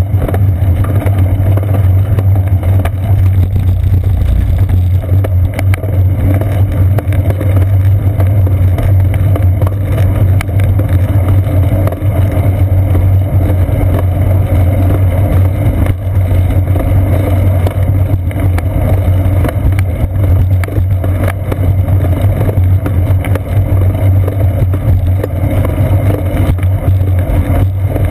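Steady, loud rumble and wind noise from a rear-facing GoPro Hero 2 on a bicycle's seat post while the bike rides along a concrete path: tyre and road vibration carried up through the frame, mixed with wind on the camera.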